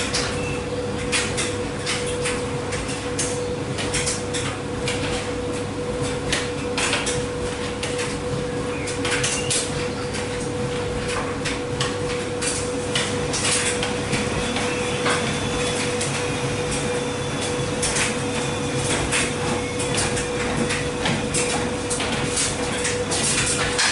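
Speed Queen front-load washer tumbling a wash load: a steady motor hum at one pitch under irregular clicks and knocks from the load turning in the drum.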